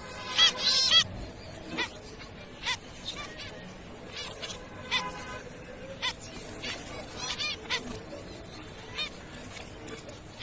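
Zebra finches calling: short, nasal, honking calls, with a quick cluster in the first second, then single calls every second or so.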